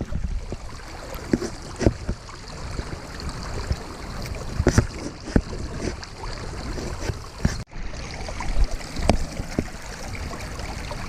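Trout stream water running steadily, with scattered sharp knocks and splashy clicks from handling close to the microphone.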